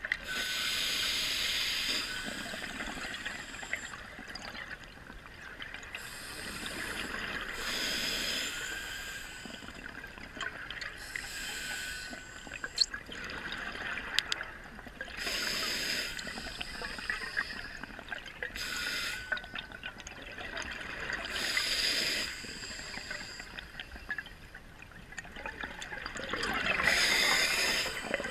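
Scuba diver breathing through a regulator underwater: a bubbling rush of exhaled air about every five to six seconds, with a quieter hiss and scattered small clicks in between.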